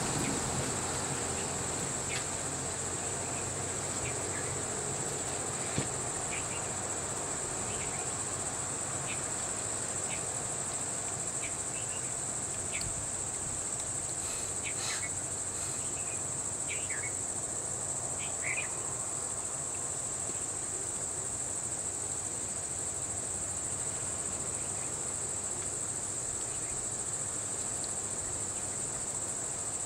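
Steady high-pitched drone of insects, with a few short, faint chirps scattered through the middle.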